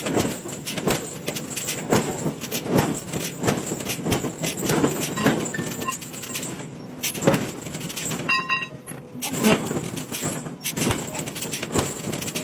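Forging shop machinery noise: irregular metal knocks and clatter over a steady hiss, with a brief buzzer-like tone about eight seconds in.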